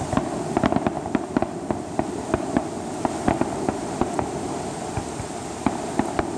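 Aerial fireworks bursting: irregular sharp cracks and pops, several a second, over a steady noisy background.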